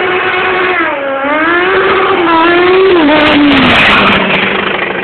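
Sport motorcycle accelerating up the road, its engine note climbing twice through gear changes, then dropping in pitch as it passes close by, loudest about three to four seconds in.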